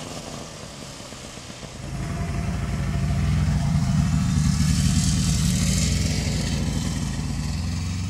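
Snowmobile engine running as the machine travels past: the engine hum swells about two seconds in, is loudest in the middle with a hiss of the track on snow and ice, and eases off toward the end.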